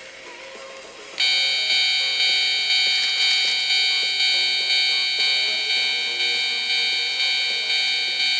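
Japanese railway level-crossing warning bell starting up about a second in and ringing in evenly repeated, ringing dings, a little more than one a second.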